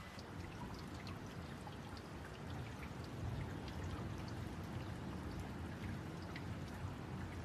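Steady rain falling, heard as a continuous low rumbling hiss with scattered close drops ticking on hard surfaces.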